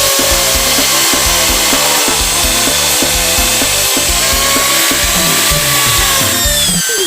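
Bosch Super Hobby 420 W electric drill running at steady speed with a motor whine, its pitch dropping near the end, over background music with a steady beat.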